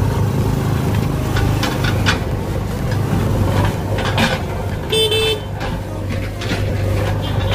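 Scooter riding over a rough dirt track: a steady engine and road rumble, with a short horn beep about five seconds in.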